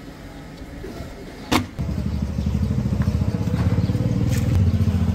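A sharp click, then about two seconds in a motor starts and runs on with a loud, rapid low throb.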